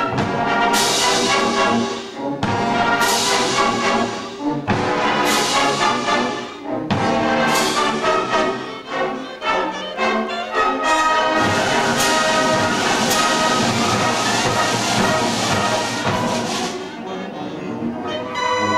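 Massed youth band playing a loud brass-led passage, struck accents with cymbal crashes and bass drum about every two seconds. In the second half the band holds one long chord.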